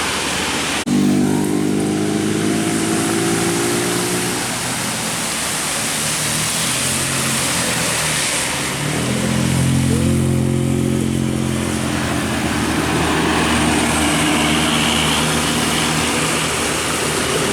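Tour bus's diesel engine running close by, starting abruptly about a second in. It eases off for a few seconds and then grows louder again, with a brief rising whine about ten seconds in.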